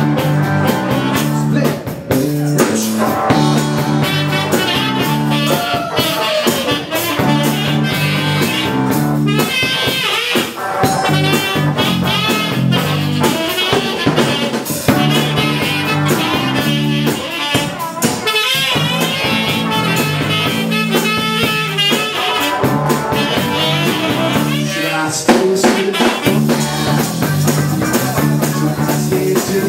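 Live band playing: drum kit and a repeating bass line, with a wavering lead line over them.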